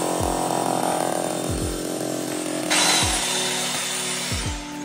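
Electric drill with a long bit boring a hole through a plaster-covered brick wall, running steadily, growing louder and harsher a little under three seconds in, then stopping near the end. Background music with a steady beat plays underneath.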